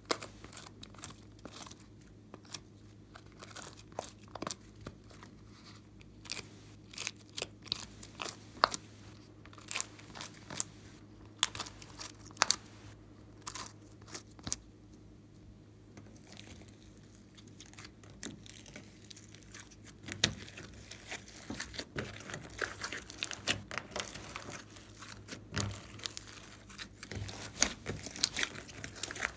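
Sticky clicks and crackles of slime and soft clay being handled: clay pressed out of a silicone mould onto wet slime, with scattered single pops at first. From about two-thirds of the way through, the clicks come thicker and faster as a large mass of white slime is squeezed and kneaded by hand.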